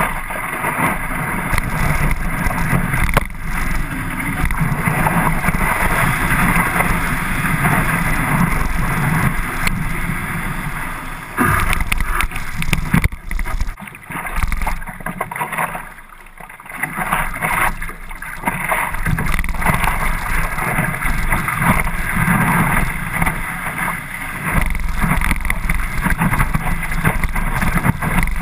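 Water rushing and splashing against the nose of a stand-up paddleboard, with wind buffeting the board-mounted camera's microphone. There is a brief quieter stretch about halfway through.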